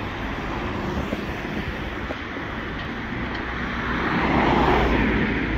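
Road traffic noise with a vehicle passing close by, swelling louder about four seconds in and then fading.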